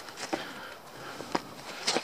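Footsteps and scuffs on bare rock, with three short knocks, the loudest near the end.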